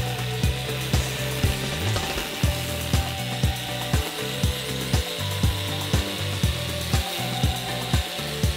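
Angle grinder rigged as a wheeled grass cutter running steadily as it cuts through dry grass, mixed with background music that has a steady beat.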